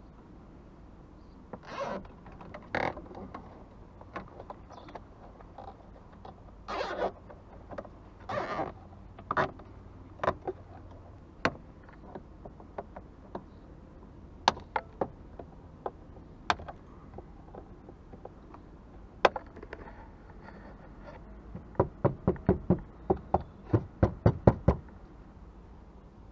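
Plastic cable ties being worked through a car's plastic wheel-arch liner and trimmed with side cutters, with rustling and knocking of plastic. There are sharp single snips in the middle and a quick run of about a dozen clicks near the end.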